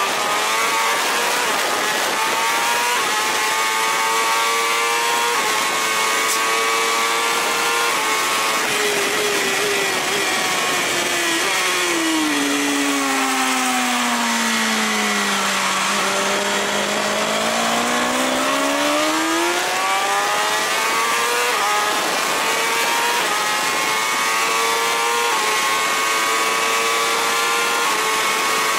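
BMW S1000RR's inline-four engine pulling hard on track, heard onboard with wind rush. The revs climb through several quick upshifts, fall steadily to a low as the bike slows for a corner about sixteen seconds in, then climb again through more upshifts.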